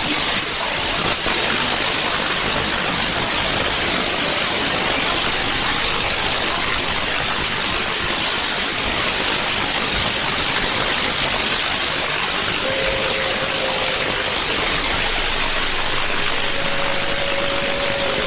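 Shortwave receiver static in upper sideband on 6190 kHz: a steady hiss of noise with no programme audible. A faint steady whistle comes in about two-thirds of the way through and again near the end.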